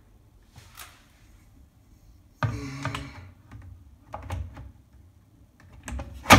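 A series of sharp clicks and light knocks as the soft-close toilet seat's hinge fittings are handled and pushed onto the fixing posts on the ceramic pan. The loudest, sharpest click comes near the end.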